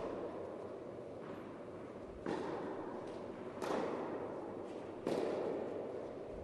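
Tennis ball struck by rackets in a rally on an indoor court: four sharp pops about a second to a second and a half apart, the first faint, each followed by a short echo off the hall.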